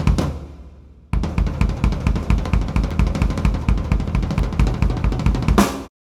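Sakae Trilogy drum kit with 3-ply maple/poplar/maple shells, played with a Ludwig LM552 bronze snare and Paiste cymbals: one hit rings out and dies away for about a second, then fast playing on bass drum, snare and toms starts again suddenly. It ends near the end on a loud accent that cuts off abruptly.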